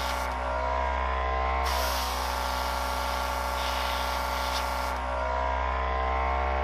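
Airbrush spraying clear coat in a burst of hiss lasting about three seconds, starting about a second and a half in, over the steady buzzing hum of its small compressor. The compressor's pitch rises a little while the spray is off.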